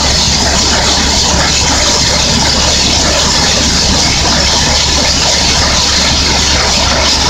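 A 650 mm HDD hole opener running in the bore: a loud, steady noise that does not let up, while dust and air blow out of the hole around the drill pipe.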